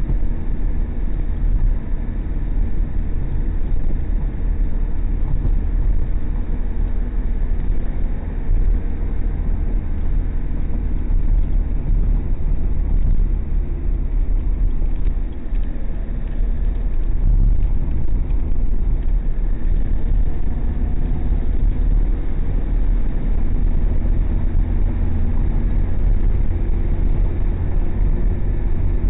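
Car cabin noise while driving at highway speed, picked up by a dashcam inside the car: a steady, low rumble of engine and tyres on the road.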